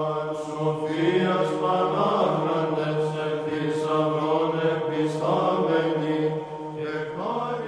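Byzantine-style Orthodox chant: a voice sings a slow melody over a steady, low held drone note.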